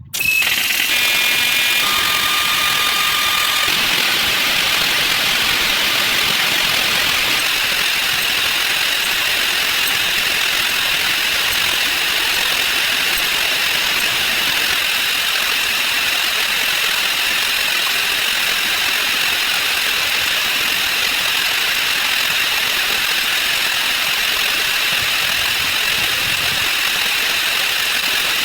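Counting sound effects sped up 256 times, blurred into a loud, steady, dense hiss with a faint high whine. A few short tones sound in the first few seconds.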